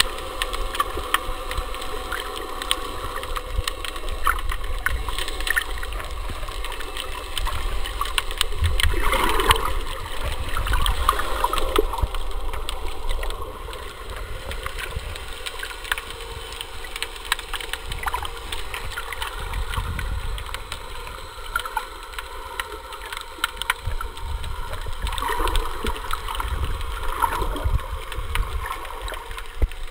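Underwater ambience picked up by a submerged camera: a steady low rumble of moving water with many scattered crackling clicks and a few louder gurgling swells.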